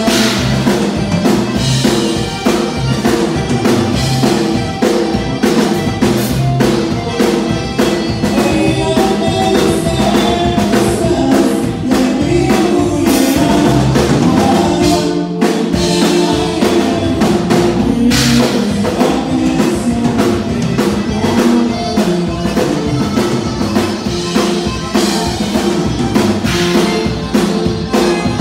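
Tejano conjunto band music, accordion-led with bass and a drum kit keeping a steady dance beat.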